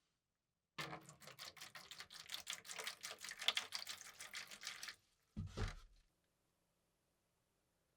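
A quick run of small clicking, scraping strokes for about four seconds, then a single dull knock.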